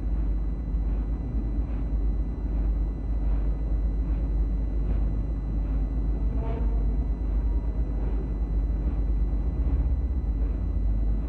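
Steady low hum and rumble with background hiss from an old recording, with a faint tick repeating about every second. A short faint tone is heard about six and a half seconds in.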